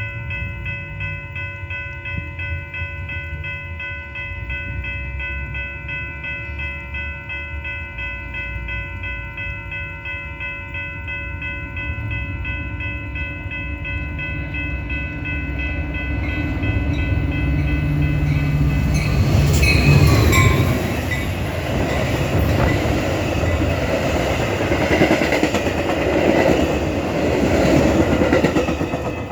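Metra EMD F40PH diesel locomotive approaching with its air horn blowing steadily, over the diesel's rumble; the horn's pitch drops as it passes at its loudest, about twenty seconds in. Then the train's wheels rush and clatter over the rails.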